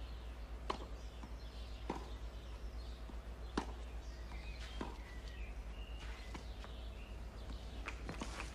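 Tennis ball struck back and forth by racket in a baseline rally on a clay court: a sharp pop about every second and a half, over a steady low hum.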